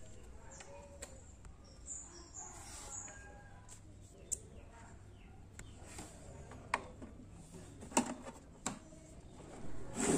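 A power cord's plug handled and pushed into a printer's rear power inlet: a few short plastic clicks and knocks, the sharpest about two-thirds of the way through. Faint bird chirps in the background.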